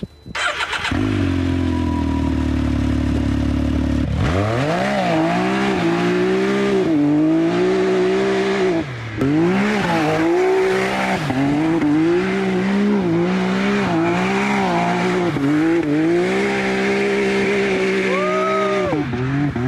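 A Can-Am Maverick X3 Turbo side-by-side's turbocharged three-cylinder engine, running through a Yoshimura exhaust with the stock catalytic converter still fitted, being driven hard. It holds steady for a few seconds, then the revs rise and fall again and again, with a brief drop about nine seconds in and a short high whine near the end. The tone is a little deeper than stock.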